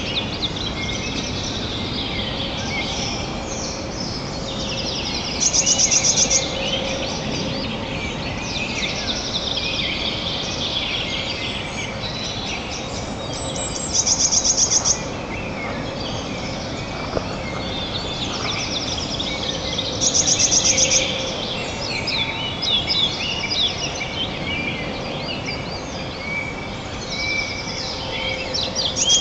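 Songbirds singing together in the forest, with one bird repeating a high, fast trill of about a second every six to eight seconds over the others.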